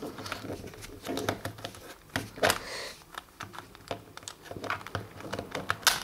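Rubik's cube layers being turned by hand: a run of quick, irregular plastic clicks and rattles as the faces are twisted.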